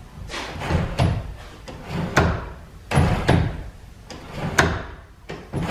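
Overhead countershaft belt shifter being worked back and forth by its hand lever: a run of clunks and knocks, about one a second and some in quick pairs, as the shifter rod and linkage slide and the spring-loaded detent drops into its seat at each end of the stroke.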